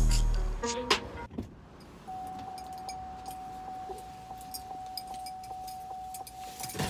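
A car's door-open warning chime sounds as one steady electronic tone, pulsing about twice a second, while the driver's door stands open. Near the end there is a loud rustle as someone climbs into the driver's seat.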